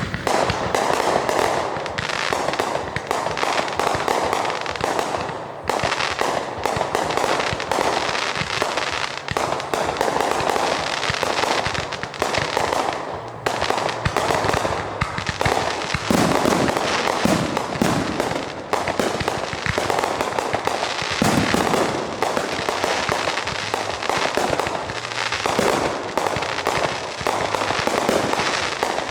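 Fireworks going off in a dense, continuous barrage: bangs and crackles in rapid succession with hardly a break.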